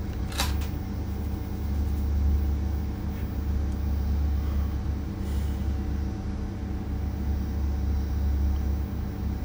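Steady low hum, with a single sharp click about half a second in.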